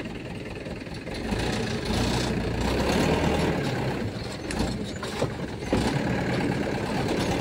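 Cargo truck engine idling steadily, growing louder about a second in, with a few light knocks over it.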